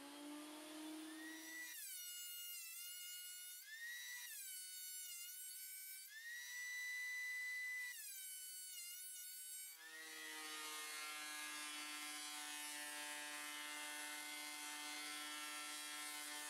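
Benchtop thickness planer running on pine board, its motor making a high whine that sags in pitch and recovers several times as the board is fed through. A lower steady motor hum runs before and after the whine.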